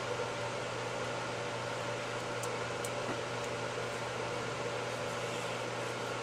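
Steady mechanical hum and hiss of a motor running, with a couple of faint, light metallic ticks about two and a half to three seconds in as small parts are handled on the fuel rail.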